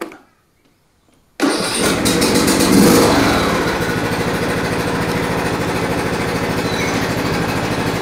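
John Deere D110 lawn tractor engine, on full choke, cranking and catching suddenly about a second and a half in. It then settles into steady running, so the earlier no-crank fault is cured.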